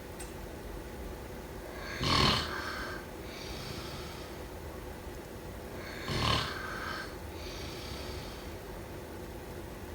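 A sleeping person snoring: two loud snores about four seconds apart, each followed by a softer breath.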